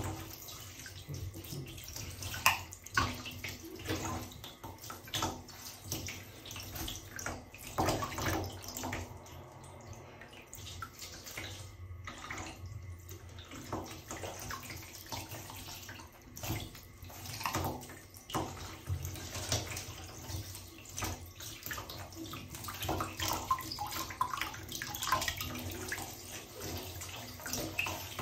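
Asian small-clawed otter splashing and paddling in shallow water in a bathtub: irregular splashes and sloshing against the tub's sides, the loudest splash about two and a half seconds in.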